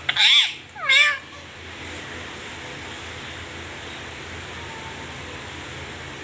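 Pet parrot giving two short calls that arch up and down in pitch within the first second or so, followed by a steady background hiss.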